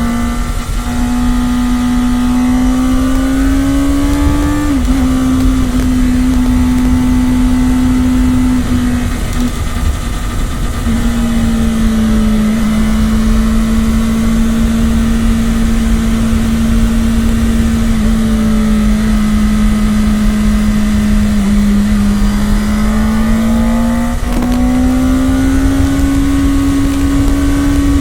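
Kawasaki Ninja ZX-10R's stock inline-four engine under way, its steady note slowly rising and falling with the throttle. The note drops sharply at a gear change about five seconds in and climbs again near the end, over a steady low rumble.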